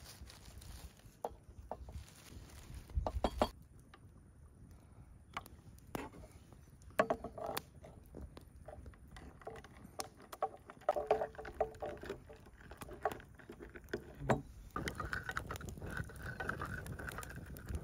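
Small handling sounds of making coffee in a copper cezve: plastic rustling and sharp clicks, then a wooden stick stirring and tapping in the pot with light clinks. Near the end a thump, then a campfire crackling and hissing.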